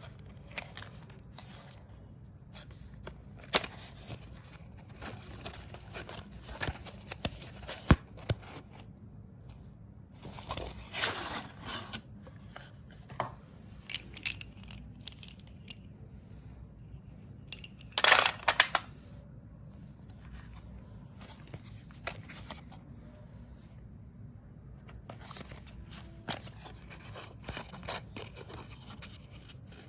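Sticks of coloured chalk being crushed and crumbled, a run of crisp crunches and snaps. The crunching comes thickest and loudest in two spells, about a third of the way in and a little past halfway.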